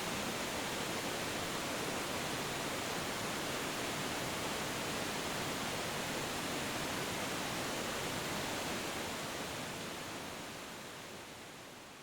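Steady rushing water noise with no surges or rhythm, fading out over the last few seconds.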